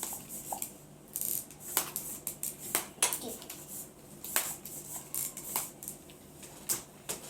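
Irregular sharp plastic clicks and clacks of a soft-bullet toy pistol being fired and handled, roughly one or two a second.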